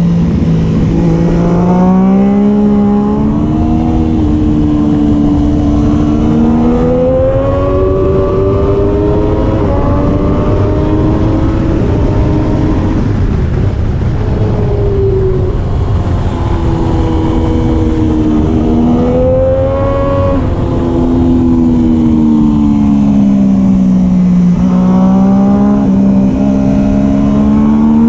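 Triumph Daytona 675R race motorcycle's 675 cc inline-three engine at racing speed, its pitch climbing through the gears and dropping again several times as the bike accelerates, shifts and brakes. A steady low rush of noise runs under it.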